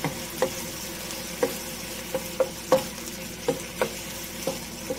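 Diced boneless chicken sizzling in oil in a nonstick wok. A wooden spatula stirs it, knocking and scraping against the pan about twice a second at an uneven pace.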